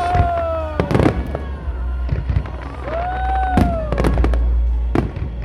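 Fireworks display: a rapid, irregular series of sharp bangs and crackles over a steady low rumble, with two long gliding tones that rise and fall, one near the start and one around the middle.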